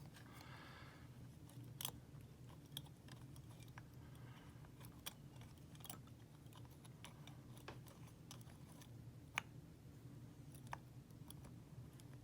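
Faint, scattered clicks and light scratches of a pick wire working the levers inside a WEP Secure 5 lever padlock, over a low steady hum.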